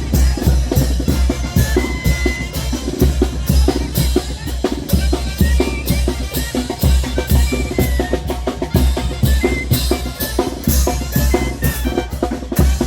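Chinelo brinco music, loud and continuous, driven by bass drum and snare in a fast, steady beat with a few short held notes over it.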